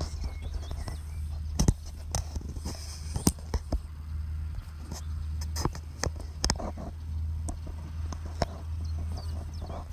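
Steady low drone of a Case MXU 130 tractor's diesel engine working across a field, with many sharp irregular clicks and knocks over it.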